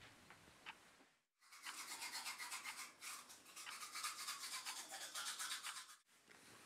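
Toothbrush scrubbing teeth in quick, even back-and-forth strokes, starting about a second and a half in and stopping about a second before the end.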